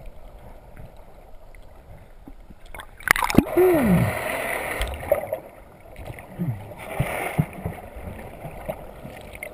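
Underwater sound: a swimmer's muffled voice making falling hoots, once about three and a half seconds in and again around six and a half seconds, over a rush of bubbling water about three seconds in and again near seven seconds.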